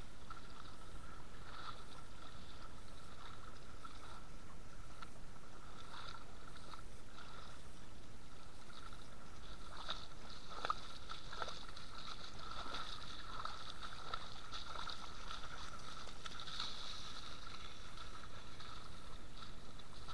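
Splashing and sloshing of feet wading through shallow, muddy flowing river water over the steady rush of the current, with a few sharper splashes about halfway through.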